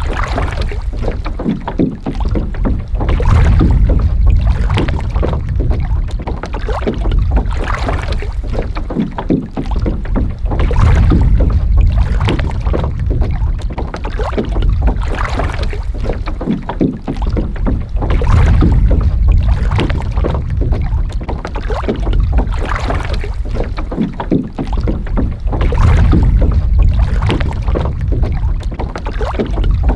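Strong wind buffeting the microphone in gusts that swell and ease every several seconds, with water splashing and lapping throughout.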